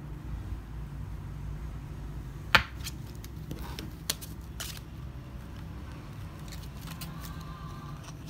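Hands handling an enamel pin on its paper backing card: a sharp click about two and a half seconds in and another about four seconds in, with lighter ticks and paper rustles between, over a steady low background hum.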